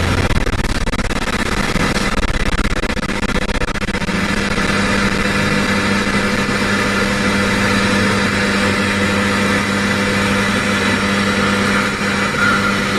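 Car engine and tyre noise heard from inside the cabin while driving along a road: a steady low engine drone with road rumble.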